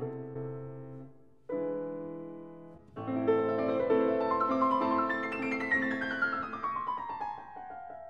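Background piano music: held chords struck and left to fade, then a descending run of notes near the end.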